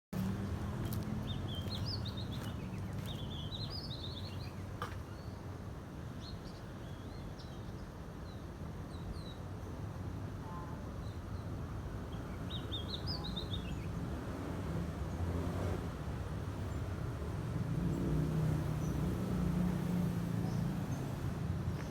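Small birds chirping in two short flurries, one at the start and one about halfway through, over a steady low rumble that swells toward the end.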